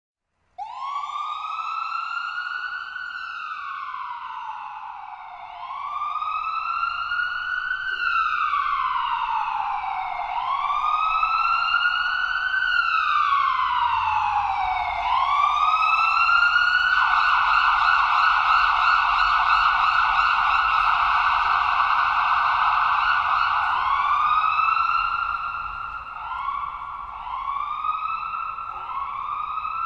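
Ambulance siren sounding, starting about half a second in. It begins with three slow wails that rise and fall about every five seconds, switches a little past halfway to a fast warble held near the top pitch, and near the end changes to short, quick rising whoops about once a second. A faint low rumble runs underneath.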